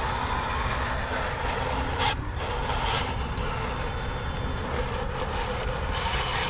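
Wind buffeting the microphone: an uneven low rumble, with a sharp knock about two seconds in.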